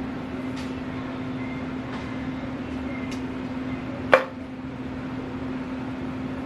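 A steady low hum over an even background hiss, with a single sharp tap or knock a little past four seconds in.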